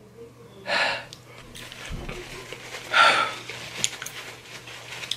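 A man breathing hard twice through an open mouth, about two seconds apart, followed by a few small mouth clicks. He is reacting to the burn of hot-sauced spicy Takis.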